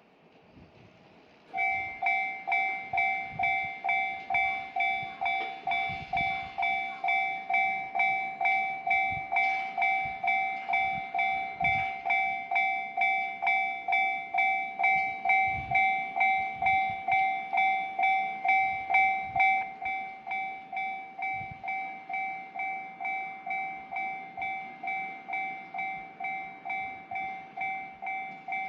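Japanese railway level-crossing warning bell starts ringing about a second and a half in. It rings as an even, fast clang-clang of about two and a half strikes a second, signalling that a train is approaching. The ringing gets somewhat quieter after about twenty seconds and keeps going.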